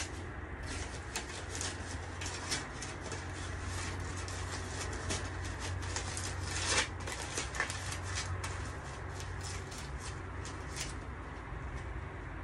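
Wood fire crackling in a homemade pizza oven: irregular small pops and clicks, with a sharper pop about seven seconds in, over a steady low hum.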